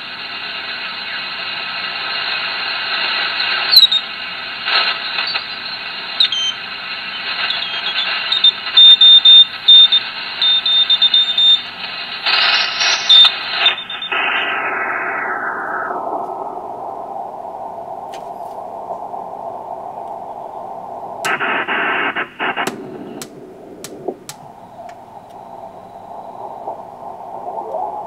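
Receiver audio from a Ten-Tec Jupiter 538 HF transceiver being tuned across the 40-metre band: band hiss and static with brief heterodyne whistles and clicks. About halfway through, the receive filter is narrowed step by step, and the hiss closes down to a duller, narrower rush.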